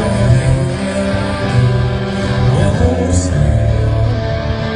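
Live rock band playing loudly, guitar-led with a heavy bass line and singing.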